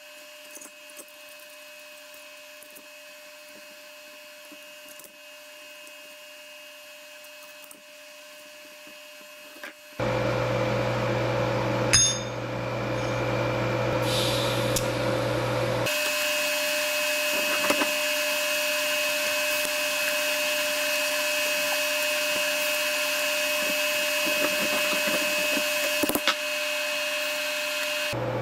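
Steady hum and hiss of workshop machinery. It gets much louder about ten seconds in and turns to a brighter hiss a few seconds later. A few sharp metal clinks come through as steel parts are set in place.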